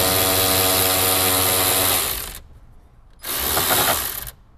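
Cordless drill with a 10 mm socket spinning out a dash bolt: the motor runs steadily for about two and a half seconds, stops, then runs again briefly about a second later.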